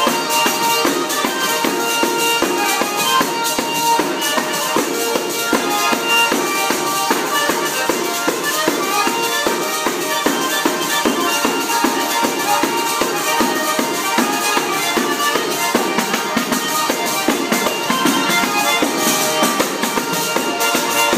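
Calabrian tarantella folk music: a sustained melody over a fast, even percussion beat, playing without a break.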